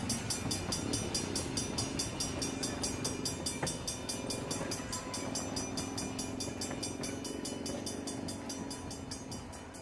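ALCO S4 diesel locomotive running with a steady engine drone that slowly fades toward the end.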